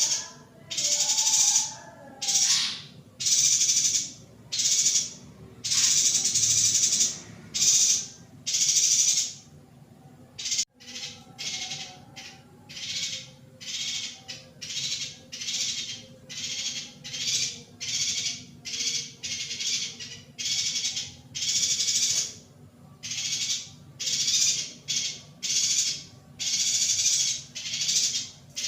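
Female yuhina giving short hissy calls over and over, about one a second, with a brief break about ten seconds in, after which the calls come shorter and closer together.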